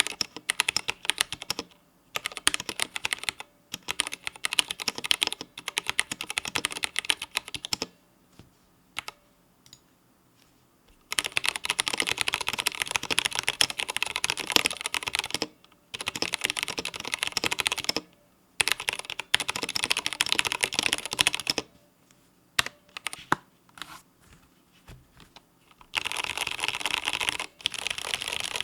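Typing on an IQUNIX L80 wireless mechanical keyboard with Cherry MX Red switches resting on a desk mat: runs of key clacks broken by short pauses. Near the end the keys are mashed in a fast, unbroken run.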